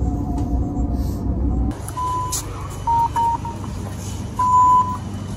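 Steady rumble of a moving train heard inside the carriage, cut off suddenly. Then a station's OV-chipkaart card reader beeps as a card is held to it: one beep, a quick double beep, and a longer beep near the end.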